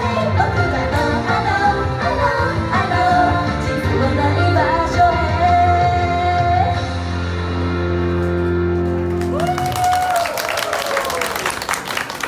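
A pop song with singing, played loud in a large hall, ends about nine and a half seconds in. Shouts and cheering follow as it stops.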